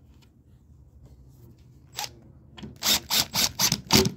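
Cordless drill-driver driving a screw into 15 mm MDF in a quick series of short bursts, about six in just over a second, near the end. A single click comes about two seconds in.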